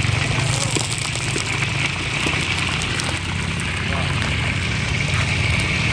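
Whole common carp frying in hot cooking oil in a wok, a steady sizzle over a low continuous rumble.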